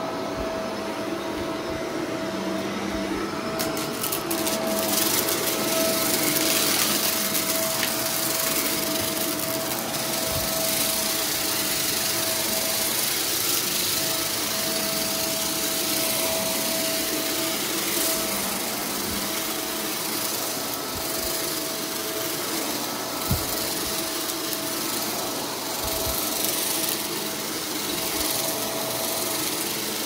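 Shark upright vacuum cleaner running over carpet: a steady motor hum with a constant whine and airflow hiss, the hiss growing brighter about four seconds in. A few light knocks are heard along the way.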